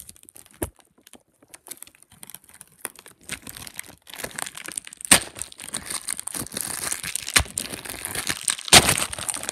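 Plastic packaging being torn open by hand: scattered small crackles at first, then a run of steady crinkling broken by sharp rips about five seconds in, again past seven, and loudest near the end.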